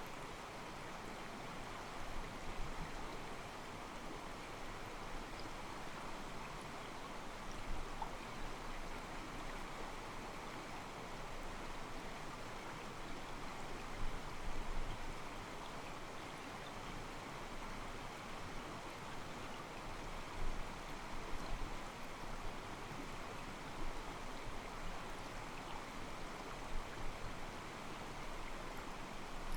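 Small mountain stream flowing over rocks: a steady, soft sloshing of water, with a brief louder swell every few seconds.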